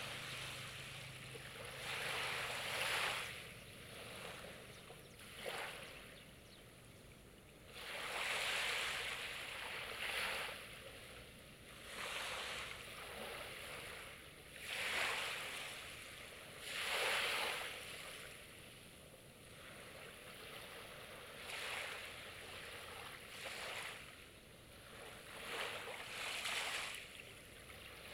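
Small sea waves breaking and washing up on the shore, in repeated surges every two seconds or so, some noticeably louder than others.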